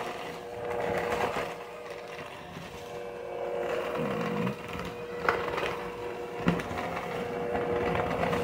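Electric hand mixer running steadily, its beaters churning a crumbly cake-and-frosting cake pop mixture in a plastic bowl, with a few short sharp knocks.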